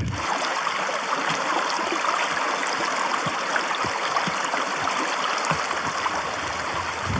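Shallow mountain stream running over rocks: a steady rush of water.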